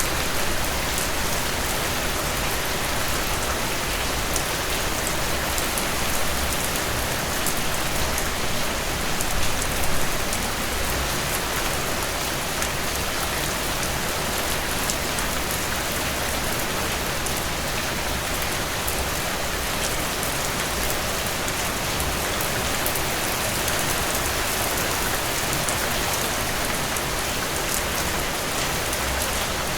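Steady rain falling on a hard surface, a dense hiss flecked with many small drop ticks, swelling briefly about nine to ten seconds in.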